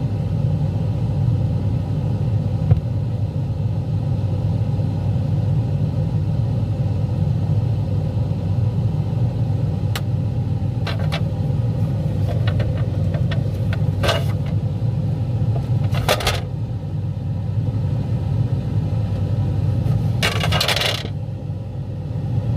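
Whirlpool refrigerator ice maker with a steady low hum, a few scattered clicks and knocks, and then ice cubes clattering down into the bin for about a second near the end.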